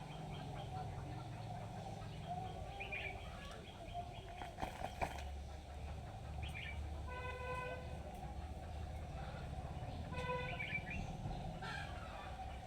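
Outdoor animal sounds: short bird chirps, and twice a held, even-pitched call, over a low steady hum that comes in about four seconds in.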